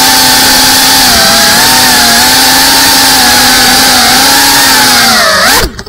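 FPV cinewhoop drone (GEPRC Cinelog 35) motors and ducted propellers whining loudly at a steady pitch that wavers slightly with throttle, heard from the onboard camera. Near the end the pitch dips and jumps, then the motors cut off suddenly.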